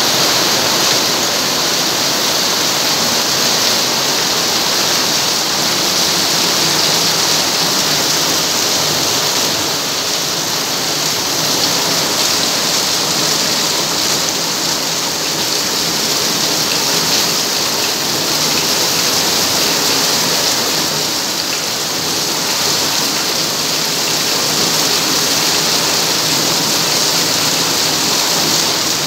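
Heavy rain pouring steadily and splashing on hard ground, an even, unbroken downpour.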